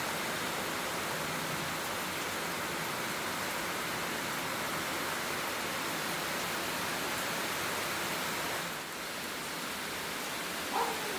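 A steady, even hiss that drops briefly about nine seconds in, with a short high-pitched call near the end.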